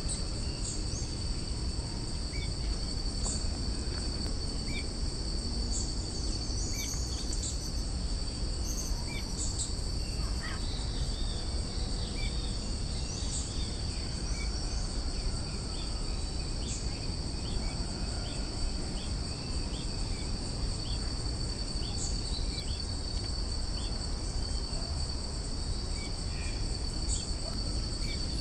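A steady, unbroken high-pitched drone of insects, with scattered short, faint bird chirps over it and a low background rumble.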